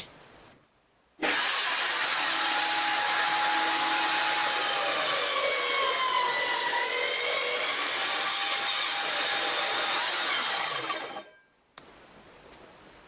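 A power tool cutting into wood, starting abruptly about a second in and stopping near the end. The motor's whine sags in pitch around the middle as the cut loads it, then comes back up.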